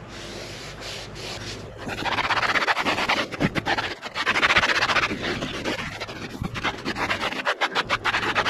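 Microfiber towel rubbing hard and fast over car interior trim, wiping conditioner into leather and textured plastic. It is soft for the first couple of seconds, then turns into loud, rapid scrubbing strokes.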